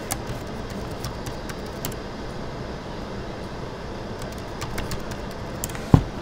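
Computer keyboard keys clicking faintly as a password is typed, over a steady low background hum, with a single louder knock near the end.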